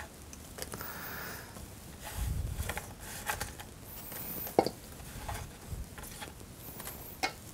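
Carrot slices being sprinkled by hand onto a leafy salad in a stainless steel bowl: soft rustling with a few light clicks, the sharpest about halfway through.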